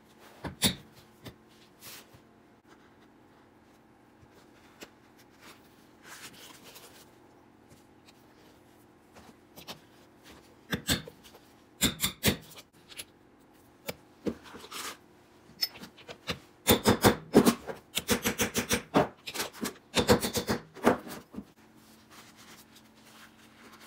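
Quiet handling and marking on the bench, then hammer blows on a steel rivet setter over a metal anvil, setting copper rivets through a leather pocket and waxed canvas. The blows come as a few sharp taps about halfway through and then a quick run of many sharp strikes in the second half.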